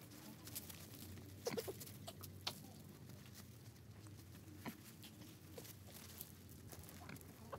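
Lakeland terrier puppies scampering on loose sand and gravel: faint, scattered patter and scuffs of small paws, with a short squeak about a second and a half in.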